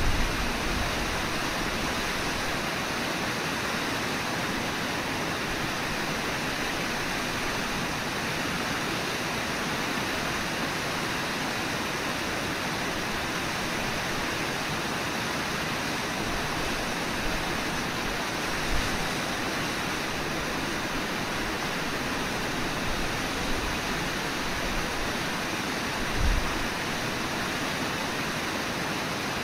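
Steady rushing of the Brooks River's flowing water, an even hiss throughout, with a few brief low thumps in the second half.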